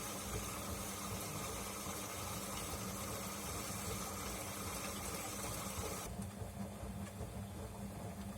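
Bosch Maxx 5 front-loading washing machine running before its spin, a steady hum with water noise; about six seconds in the high hiss cuts off and the hum carries on.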